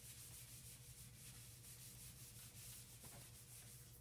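Whiteboard eraser wiping marker off a whiteboard: faint, repeated rubbing strokes over a steady low hum.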